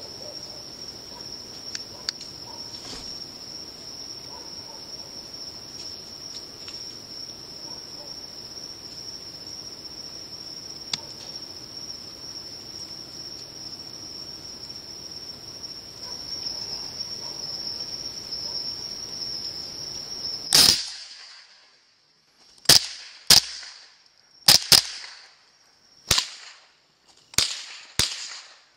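Steady chirring of night insects with faint sniffing and rustling of feral pigs. About twenty seconds in, a Ruger 10/22 .22 LR rifle fires one shot, then about seven more quick shots over the next seven seconds, the later ones at a second pig running off.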